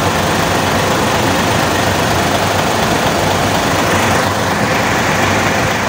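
Truck engine idling steadily with the air conditioning running.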